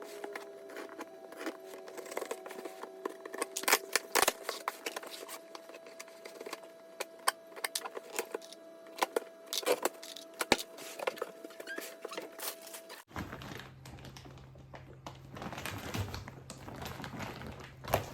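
Packaging being handled while a small grill is unboxed: irregular crinkling, rustling and sharp clicks.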